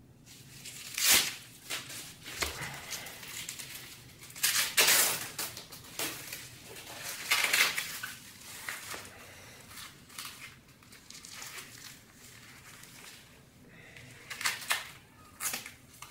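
Nylon band and Velcro of a CAT Combat Tourniquet being handled on a leg: several short rasping rips as the band is pulled tight through its buckle and the Velcro pressed down, with fabric rustling and a few light plastic clicks in between.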